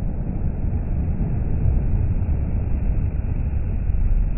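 Volvo FH articulated tipper lorry driving past at motorway speed: a steady low rumble of diesel engine and tyres on the wet road, growing a little louder near the end as it draws level.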